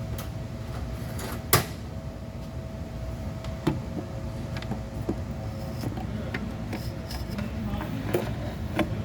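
Scattered sharp clicks and light knocks of a fuse and its holder being handled and pressed into place, the loudest click about a second and a half in, over a steady low hum.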